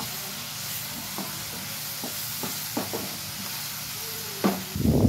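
Chopped onion, tomato, garlic and green chillies sizzling in oil in a non-stick kadai, with a wooden spatula scraping and knocking against the pan every second or so as the mixture is stirred. A louder clatter comes near the end.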